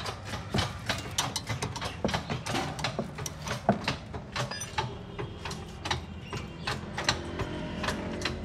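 Irregular metallic clicks and clinks of hand tools against a car's front brake parts (disc, caliper and mounting) as they are worked on, a few clicks a second.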